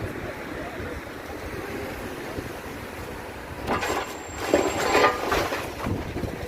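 Wind rumbling on the microphone, then about four seconds in a loud stretch of metallic clanking and squealing lasting about two seconds.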